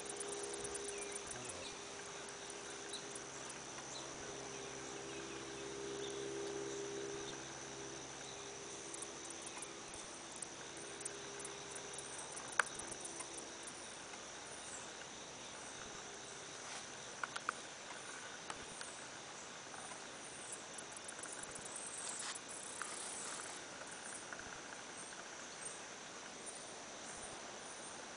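Crickets trilling steadily in the garden, a constant high-pitched insect chorus. A low hum runs under it for the first half, and a few faint clicks stand out.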